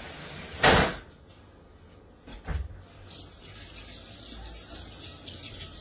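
A brief loud clatter of a utensil a little under a second in, a softer knock later, then a kitchen tap running steadily at the sink.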